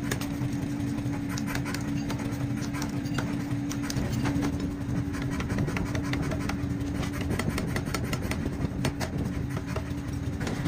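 Electric power hammer in a forge running with a steady hum, with irregular sharp metal knocks as red-hot leaf-spring steel is hammered on the anvil.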